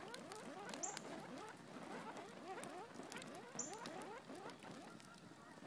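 Flaming stick with burning plastic on it making a fast stream of squeaky chirps, each rising in pitch, several a second, with scattered crackles and two sharp pops with a short hiss.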